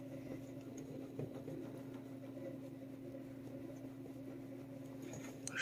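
Quiet room with a steady low hum. Over it comes the faint rustle of a thick leather glove stroking and gripping a cat's neck fur, with a brief louder sound right at the end.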